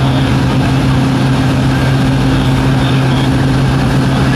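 Propeller-driven jump plane's engine droning steadily, heard from inside the cabin as a loud, even hum with a strong low tone.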